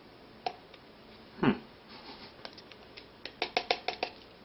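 Hands handling an emptied foil drink-mix packet: a click, then a knock about a second and a half in, then a quick run of about six crinkling clicks near the end as the packet is crumpled.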